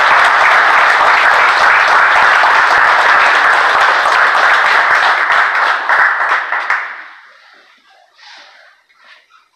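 Audience applauding loudly, dying away about seven seconds in.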